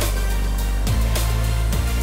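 Soundtrack music with a steady deep bass and falling sweeps in pitch, about a second in and again near the end.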